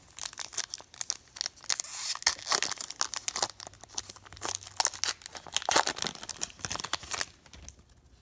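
A Fleer Showcase hockey card pack being torn open, its wrapper crinkling and tearing in a dense crackle that runs for about seven seconds and stops shortly before the end.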